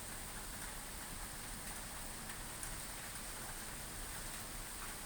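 Steady rain falling: an even hiss with scattered drops tapping.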